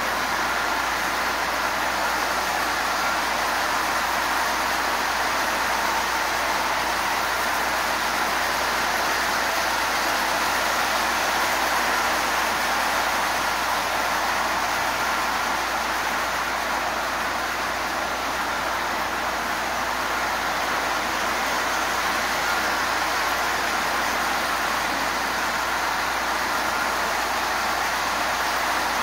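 Marx toy trains running on a tinplate track layout: steady running noise of metal wheels on the rails together with the locomotives' electric motors, unchanging throughout.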